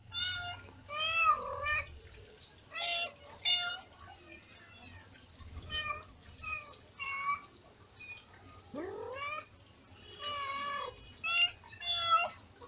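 Kittens mewing over and over in short, high calls one after another, a dozen or more in all. About nine seconds in there is one longer call that rises in pitch.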